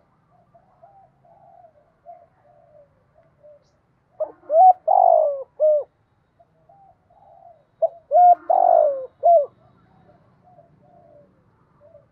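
Spotted dove cooing: two loud phrases about four seconds apart, each a couple of short notes, a longer falling coo and a short closing note, with soft quiet coos in between.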